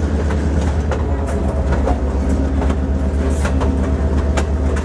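Passenger train rolling along the rails: a steady low rumble with scattered clicks and knocks from the wheels and cars.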